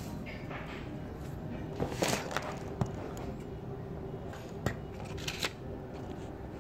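Packaging being handled for an unboxing: scattered clicks and short rustles, the loudest about two seconds in and again near the middle, over a steady low hum.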